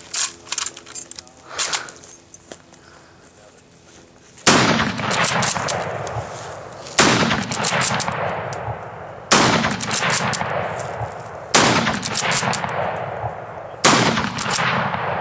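A few small metallic clicks as the Mosin-Nagant bolt-action rifle is readied. Then five rifle shots, evenly spaced a little over two seconds apart, each trailing off in a long echo.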